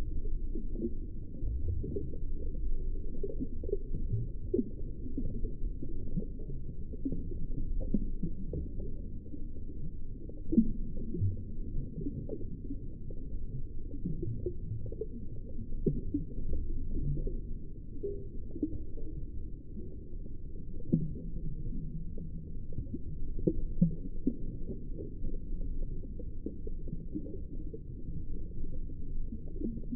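Muffled underwater ambience: a steady low rumble with many soft scattered clicks and knocks, and nothing in the higher range.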